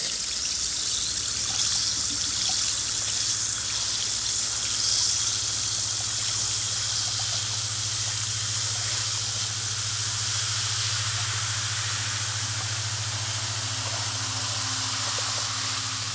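Water running steadily into a salon shampoo bowl as a child's hair is rinsed, with a steady low hum underneath.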